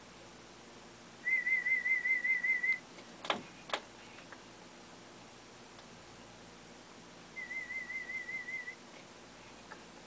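A high electronic warbling tone, its pitch wobbling quickly and evenly, sounds twice for about a second and a half each, the second time quieter; two sharp clicks come between them.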